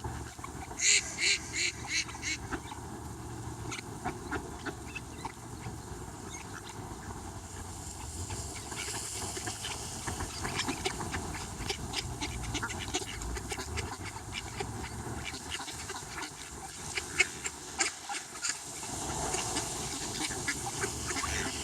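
A bird making small soft calls: a quick run of about six short calls about a second in, then scattered short chirps and clicks.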